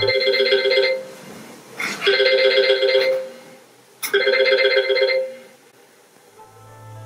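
Smartphone ringing: three warbling rings about a second long, each a second or so apart, that stop after the third as the phone is tapped.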